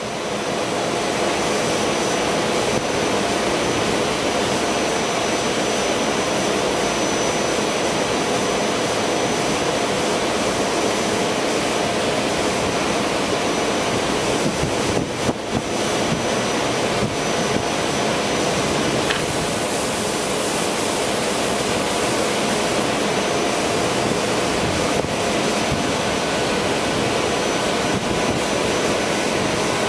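SEPTA Silverliner IV electric railcar standing at the platform, its onboard equipment running with a steady loud rushing hum and a faint high whine. About two-thirds of the way in a high hiss rises for a few seconds.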